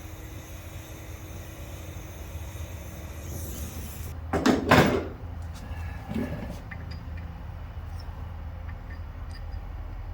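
Heat source being set up and run on the engine block to free a seized broken bolt. There is a steady hiss and low hum, with two loud clunks about four and a half seconds in and a few lighter knocks after.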